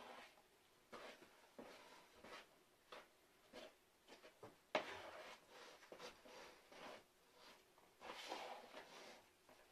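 Hands kneading bread dough in a bowl: faint, soft squishing and rustling strokes about once a second, with a sharper tap about halfway through.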